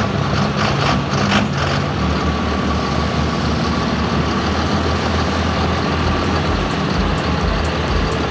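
Second-generation Dodge Ram pickup's Cummins inline-six diesel idling steadily. A deeper engine throb joins about six seconds in.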